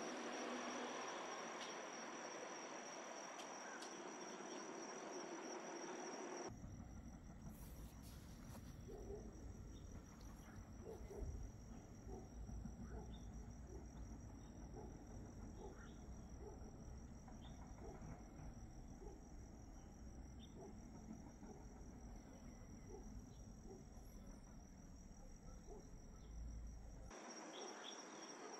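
Faint, steady high-pitched trill of insects. From about six seconds in until near the end, a low rumble runs underneath.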